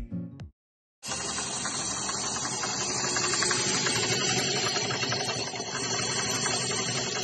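Motorized line-spooling machine spinning a blue Coast Reels reel, winding fishing line onto it with a steady whirring hiss. It starts about a second in, after the last notes of the intro music.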